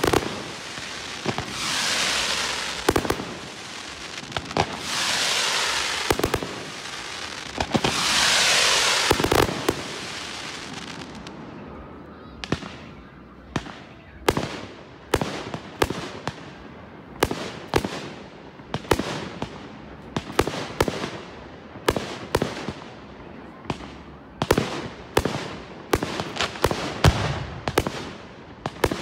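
Aerial fireworks display. For the first ten seconds or so there are several long hissing, crackling rushes, each lasting one to two seconds. After that comes a steady run of sharp bangs, roughly one or two a second, each with an echoing tail.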